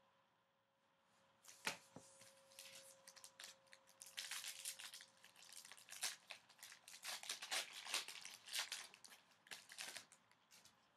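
Foil wrapper of a 2015-16 O-Pee-Chee Platinum hockey card pack being torn open and crinkled by hand. A sharp rip comes about a second and a half in, then irregular crackling rustles until near the end.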